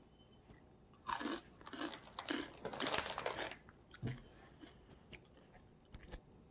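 Crunching and chewing of a crisp hot chili pepper and lime flavored snack, a run of crunches from about a second in to the middle, followed by a few faint clicks.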